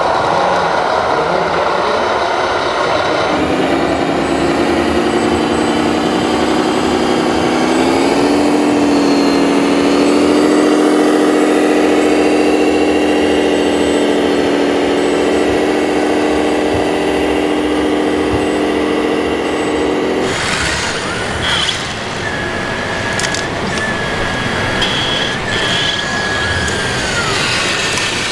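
Large-scale RC model trucks running, with a steady engine-like hum of several pitches that steps up about eight seconds in and stops abruptly near twenty seconds. After that come clicks and a steady high whine from RC construction machines, and the whine dips briefly near the end.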